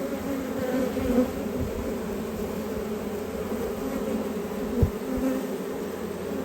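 Many honeybees flying around an opened hive, a steady buzzing drone from a disturbed, flighty colony. A brief thump sounds about five seconds in.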